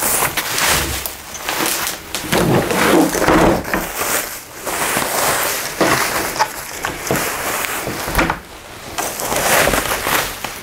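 Rustling and crinkling of packaging, with irregular scrapes and a few knocks, as an oversized zero gravity chair is pulled from its box and unwrapped.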